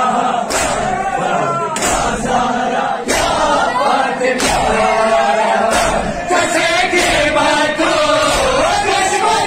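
Noha sung by a male reciter, with a crowd of men chanting along, and the unison slaps of matam chest-beating landing together about every second and a bit.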